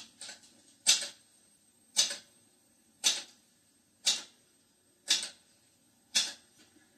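Typewriter keys struck one at a time, a single sharp clack about once a second, seven in all.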